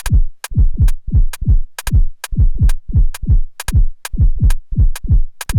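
Erica Synths Perkons HD-01 drum synthesizer playing a looping pattern with shuffle engaged. A deep kick, each hit falling in pitch, lands about twice a second, with short high ticks in an uneven, swung rhythm between the kicks.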